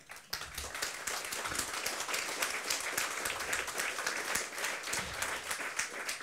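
Audience applauding steadily, starting a moment in.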